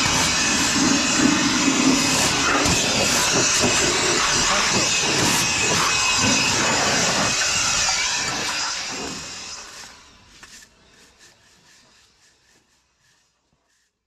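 Loud motor-driven machine running, with irregular cracking and knocking over a steady hum; the sound fades away over the last few seconds.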